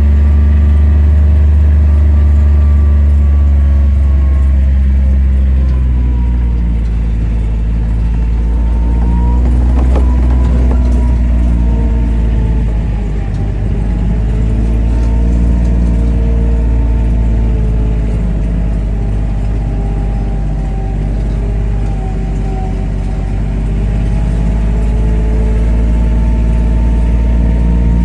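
Engine of a utility vehicle running steadily while it drives, its pitch drifting gently up and down with speed.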